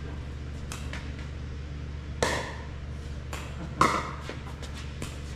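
Pickleball being hit with paddles during a rally: two loud, sharp pocks of the hollow plastic ball off the paddles, about a second and a half apart, with fainter taps around them. A steady low hum runs underneath.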